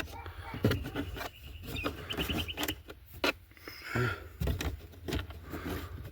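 Irregular clicks, taps and rubbing of hard plastic being handled, with a brief rapid run of ticks about two seconds in: the broken plastic pieces of a glovebox latch being poked at and picked out.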